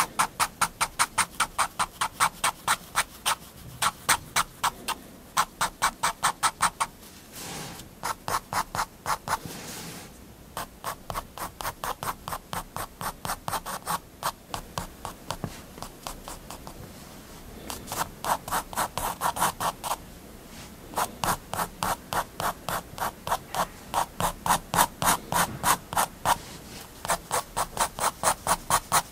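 Staedtler triplus 0.3 mm fineliner scratching quick hatching strokes on paper, about five strokes a second, in runs broken by short pauses.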